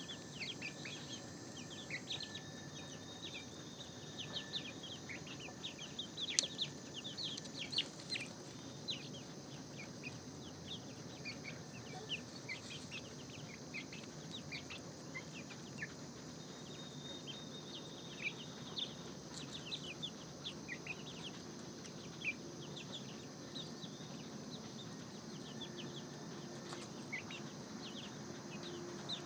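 A flock of young chickens peeping and cheeping in many short, high chirps, overlapping continuously as they feed.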